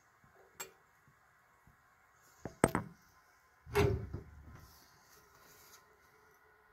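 A few clicks and clunks of brass plumbing fittings being handled: a small click about half a second in, a sharp knock near three seconds, and a heavier thump about four seconds in.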